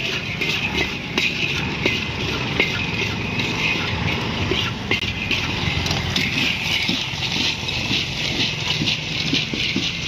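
Hot sand and black chickpeas scraped and stirred with a scoop in a large metal wok: a constant gritty rustle full of small clicks as the chickpeas roast in the sand. A low steady rumble runs underneath.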